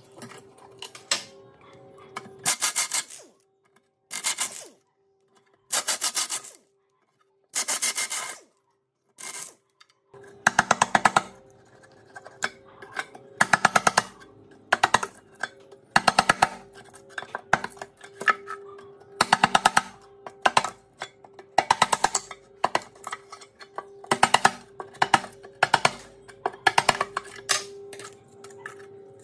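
A metal blade scraping rust off the steel toothed rack of a book-binding machine: rough chattering strokes, a few spaced out at first, then about one a second from ten seconds in. Background music plays underneath.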